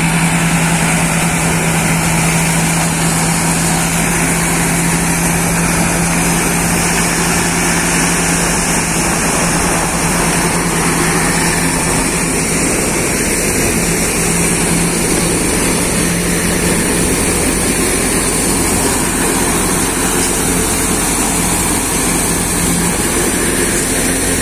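Tractor-driven wheat thresher running steadily, a continuous machine drone with a low hum that holds one pitch throughout, while straw bundles are fed in.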